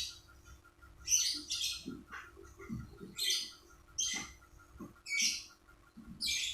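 Lovebird giving short, harsh, high-pitched chirps, repeated about once a second.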